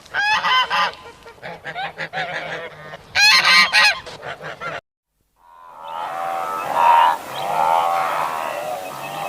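Farm birds calling: loud, harsh, repeated calls in two bursts, the second about three seconds in. After a brief cut to silence, a group of birds calls over one another.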